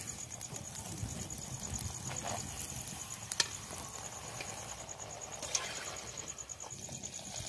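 Fuchka dough discs frying in hot oil in an iron kadai over a high wood fire: a steady low sizzle, with two sharp clicks of a slotted spoon against the pan, the first a little under halfway and the second about two seconds later.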